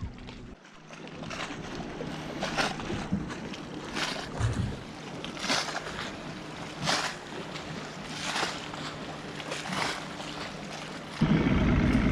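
Water slapping against a fishing boat's hull as it trolls, in short swishes about every second and a half over a steady wash of water and wind. A louder low rumble comes in near the end.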